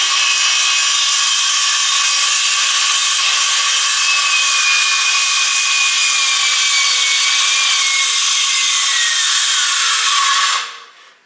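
Cordless DeWalt circular saw cutting through a wooden post, its running note sagging slowly in pitch under the load before the saw stops near the end: the battery is going flat.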